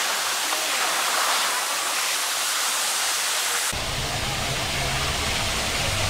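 Steady rushing hiss of water pouring down a speed slide and splashing into its runout. About two-thirds of the way through it cuts off abruptly, replaced by a lower hum with less hiss.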